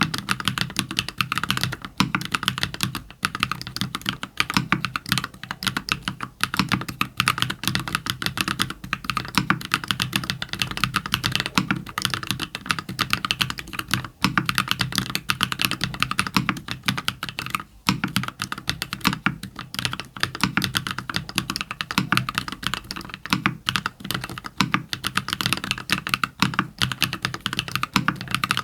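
Continuous fast typing on a custom 60% mechanical keyboard (ilumkb Simpler60, aluminium plate, lubed JWK Cola switches, lubed Owlab v3 stabilizers), a dense run of keystroke clacks with a few brief pauses.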